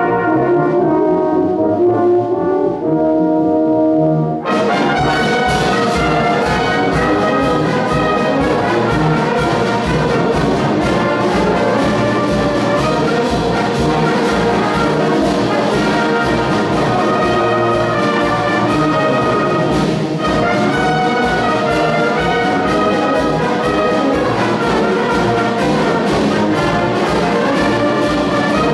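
Brass band playing: held brass chords for about four seconds, then the full band comes in with drum set and cymbals keeping a steady beat under the brass.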